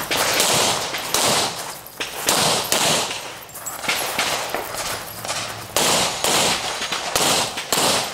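Pistol shots fired in quick pairs and short strings, each with a short echo, with brief pauses between strings.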